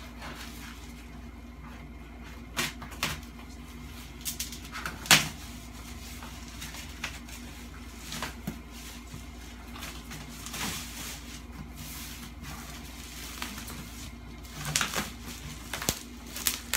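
Plastic wrapping on a large flat-pack cardboard box being snipped with scissors and pulled off: scattered crinkles, snips and knocks, the sharpest about five seconds in and a cluster near the end, over a faint steady hum.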